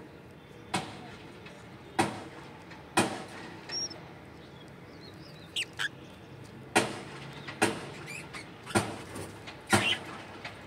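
Budgerigars shuffling in a clay nest box: about seven sharp knocks and taps at irregular intervals, with one or two faint, short high chirps near the middle.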